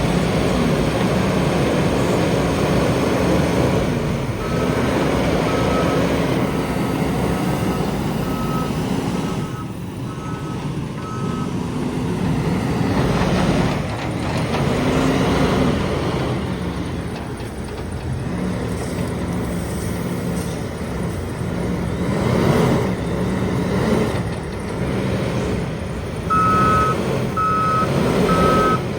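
Diesel engine of a JCB 437 wheel loader working under load, its pitch rising and falling as it revs, with a reversing alarm beeping steadily about one and a half times a second for several seconds early on and again near the end.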